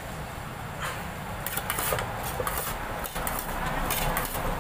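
A metal spoon scraping and clinking against an aluminium saucepan as a salad is tossed in it, in short irregular strokes, over a steady low rumble.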